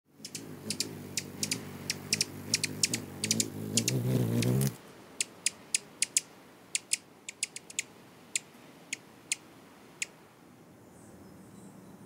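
Hummingbird wings humming and growing louder, then stopping abruptly about four and a half seconds in, while the bird gives a run of sharp, high chip notes, about two or three a second, which stop about ten seconds in.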